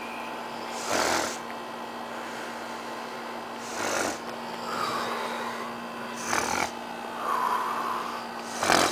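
A sleeping man snoring, four loud snores about two and a half seconds apart.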